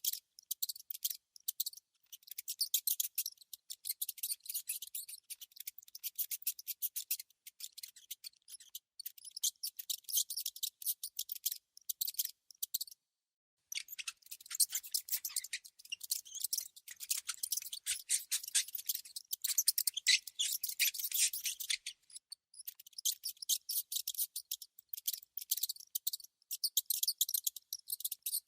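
Rodent sound: dense, rapid, high-pitched clicking chitter in quick trains, with a brief silent break about halfway through.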